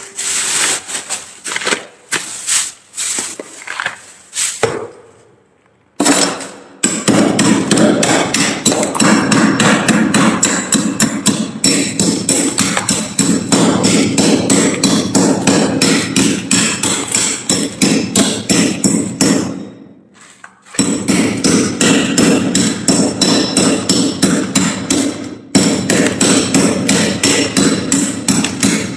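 Large metal spoon chipping and scraping thick frost off the inside walls of a freezer compartment, in a fast run of sharp strikes several a second that stops briefly about two-thirds through. During the first few seconds there are only sparser scrapes and knocks as loosened ice is scooped into a plastic bag.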